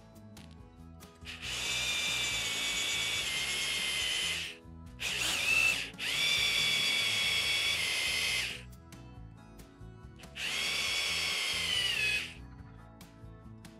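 Electric drill boring into the end of a steel bolt held in a vise. It runs in four bursts, the longest about three seconds, and the whine drops in pitch each time it stops.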